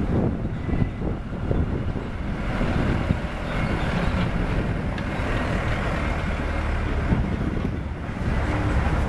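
Heavy diesel construction machinery, excavators and dump trucks, running with a steady low rumble.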